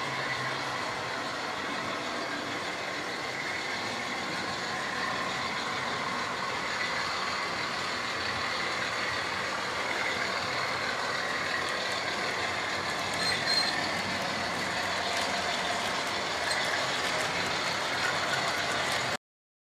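Model trains running on a model railway layout: a steady hum from the small locomotive motors and the rattle of wheels on the rails. It cuts off abruptly just before the end.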